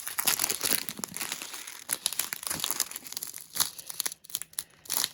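Small plastic bags of diamond-painting drills being handled, crinkling irregularly.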